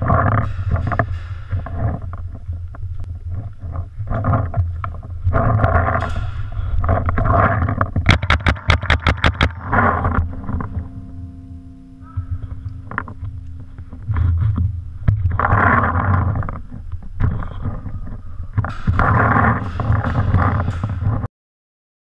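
A paintball marker fires a rapid string of about a dozen shots, roughly eight a second, midway through. Under it runs a steady low rumble with scuffing movement noise from the gun-mounted camera.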